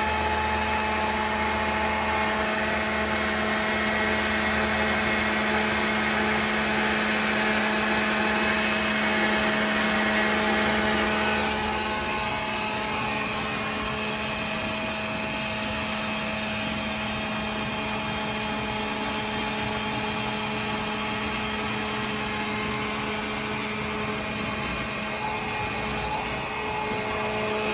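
Finish Thompson EFP27 electric drum pump running steadily on its fast setting while pumping bleach, a constant motor hum with several steady tones; it gets a little quieter about twelve seconds in.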